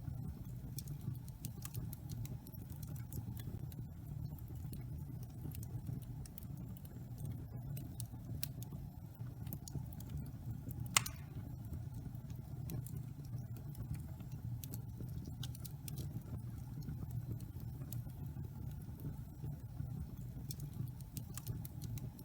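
Wood fire burning in a fireplace: a steady low rumble of flames with scattered small crackles, and one louder pop about halfway through.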